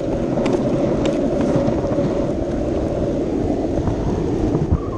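Skateboard wheels rolling fast on an asphalt road, a steady dense rumble with a few sharp clicks, and wind on the microphone.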